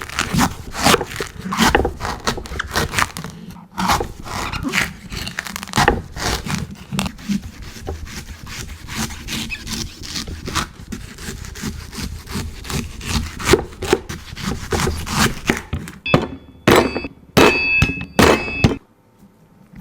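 Knife chopping and scraping into a coconut: a steady run of sharp strikes and scrapes. Near the end a few louder strikes ring out with a metallic tone from the blade, and then the sound cuts off suddenly.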